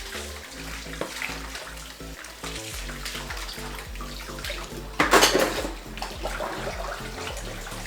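Tap water running into a sink while dishes are rinsed, with a louder burst of noise about five seconds in. Background music with a steady low pulse plays underneath.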